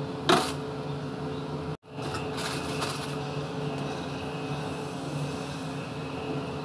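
Steady mechanical hum of a washing machine running. About a third of a second in comes a short, loud scrape or clatter, and a few more softer scrapes follow around two to three seconds in, as a knife and a whole fish are handled over a stainless-steel sink.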